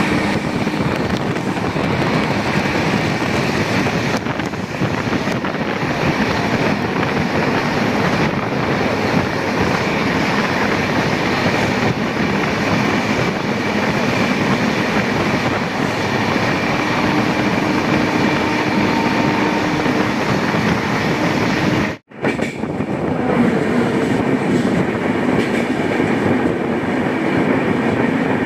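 The 12335 Bhagalpur–Lokmanya Tilak Terminus Express running on the rails: a steady, loud train noise that cuts out for an instant about 22 seconds in.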